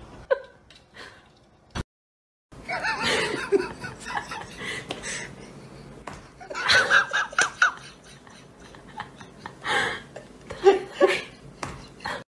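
People laughing in several bouts, after a few sharp smacks and a brief gap near the start.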